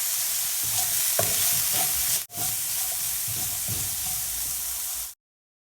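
Onions frying in oil in a pan over lowered heat: a steady sizzle with light clicks and scrapes of stirring. It drops out for an instant a little past two seconds in and cuts off abruptly shortly before the end.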